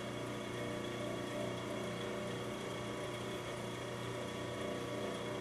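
A steady mechanical hum, like a motor running, with several constant tones and no change in level.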